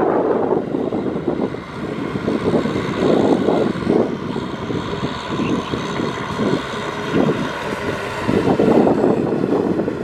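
Kubota M6040 tractor's diesel engine working under load while it tills a flooded, muddy paddy, its level surging and easing every second or two.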